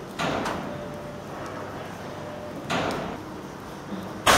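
Steel machinery of the ship lift making three sudden metallic clunks, each with a short fading ring, over a steady mechanical background. The last clunk, near the end, is the loudest.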